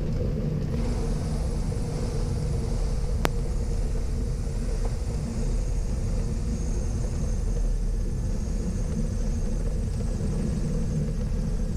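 A Beechcraft Baron B55's twin piston engines running at low power with a steady drone and low rumble as the plane rolls along the runway after landing, heard inside the cabin. A single sharp click about three seconds in.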